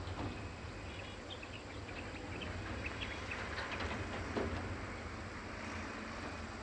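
Low, steady rumble of a distant electric-locomotive-hauled train approaching along the track, with a few short high chirps about a second to three seconds in.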